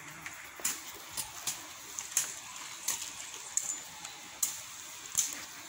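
A series of sharp, crisp clicks at irregular intervals, about eight in all, over a faint steady hiss.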